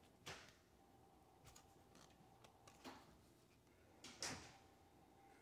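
Mostly near silence with a few faint short knocks and scrapes, the loudest about four seconds in: tub drain and overflow parts being handled and adjusted.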